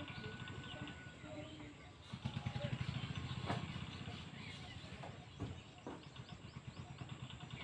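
Rural outdoor ambience: a low engine rumble that swells about two seconds in and then eases, with faint bird chirps and a few sharp clicks near the middle.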